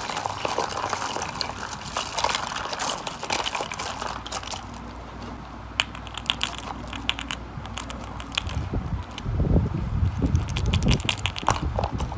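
Hands rummaging through a box of plastic dice, small plastic toys and foil-wrapped sweets: rustling and crinkling at first, then many sharp clicks of small plastic pieces knocking together, with dull handling thumps over the last few seconds.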